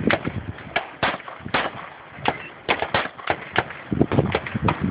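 Pistol shots fired in quick strings: pairs and short bursts a fraction of a second apart, separated by brief pauses, well over a dozen in all and coming fastest near the end.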